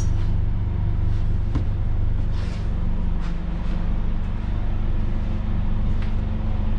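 Bus engine idling, heard as a steady low drone inside the passenger cabin, with a few light knocks.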